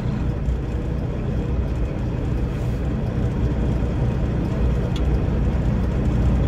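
Semi-truck's diesel engine running at low revs, a steady low rumble, as the rig is maneuvered slowly into a loading dock.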